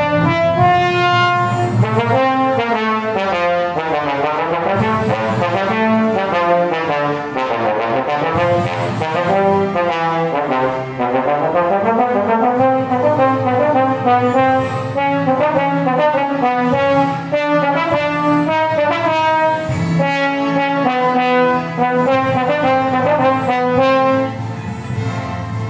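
Trombone played solo in a fast, continuous passage of short notes, running up and down in pitch in long sweeps.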